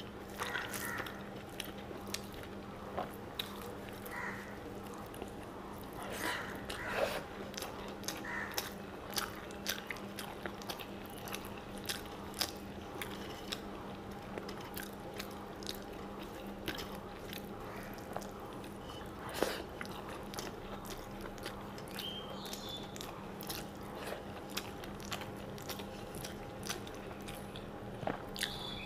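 Close-miked chewing of rice and fish, with many small wet mouth clicks and occasional crunches. A steady low hum runs underneath.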